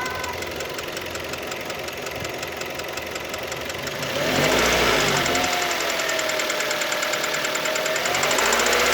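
Kia Ceed engine running warm with a regular knock. About four seconds in it is revved up and held, and the knock quickens with the revs. The knock comes only when the engine is hot, and the owner has ruled out the valves, which he adjusted to within spec.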